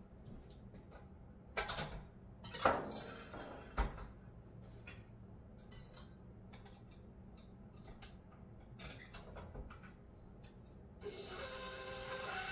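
Metal bowl and mixer attachment clinking and clattering as a stand mixer is set up with a new attachment, with a few louder knocks in the first four seconds. About eleven seconds in, the stand mixer's motor starts with a steady whine.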